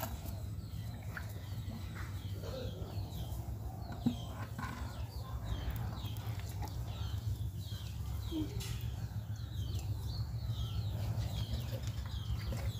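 Birds chirping over and over with short calls, with chickens clucking among them, over a steady low rumble.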